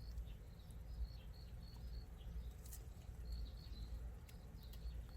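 Quiet outdoor ambience: faint, short high chirps repeating at an uneven pace over a steady low rumble.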